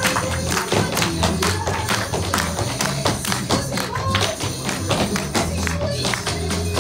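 Tap shoes striking a stage in rapid clicks during a choreographed tap routine, over recorded music with a steady bass beat.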